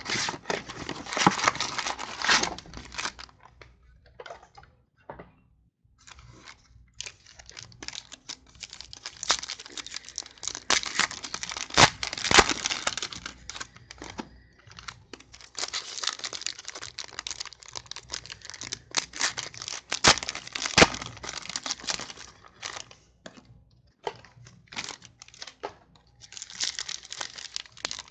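Football card blaster box being unwrapped and its packs torn open: plastic wrapper crinkling and pack foil tearing in bursts, with short pauses between.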